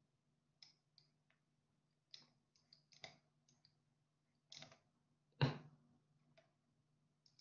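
Faint, scattered clicks and taps of a stylus on a tablet as handwriting is drawn, the loudest one about five and a half seconds in, over a faint steady low hum.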